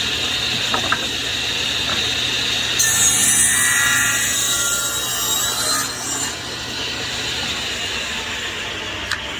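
Table saw running steadily, its blade cutting through a small wooden block on the wedge jig: a louder hiss of cutting from about three seconds in to about six seconds in, with a few light knocks of wood being handled.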